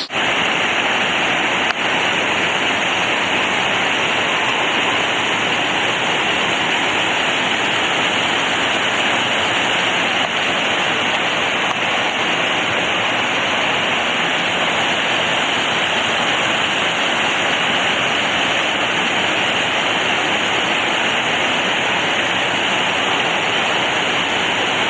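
Steady, loud rush of water cascading over rocks in a mountain stream, an even roar with no change throughout.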